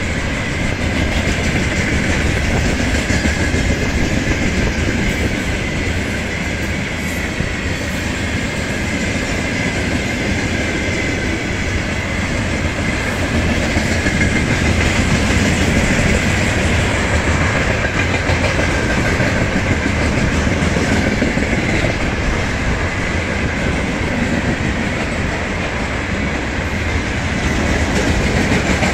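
Freight train of rail tank cars rolling past at steady speed, the wheels running over the rails in a continuous loud rumble with a faint high steady tone above it.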